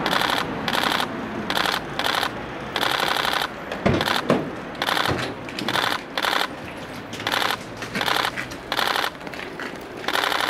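Press cameras' shutters firing in continuous-shooting bursts: runs of rapid clicking, each under a second long, more than a dozen of them in quick succession. A couple of dull knocks about four seconds in.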